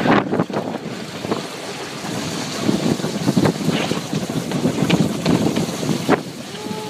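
Funchal wicker toboggan sliding down the asphalt street, its wooden runners scraping and rattling over the road surface, with wind on the microphone.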